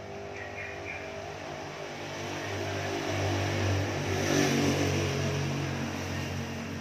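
A motor vehicle's engine running with a steady low hum that grows louder through the middle, loudest about four seconds in, then eases off.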